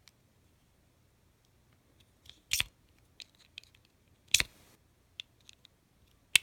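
Small flathead screwdriver working a tiny screw in a Marlin Model 15YN rifle bolt: scattered light metal clicks and scrapes, with two sharper clicks about two and a half and four and a half seconds in.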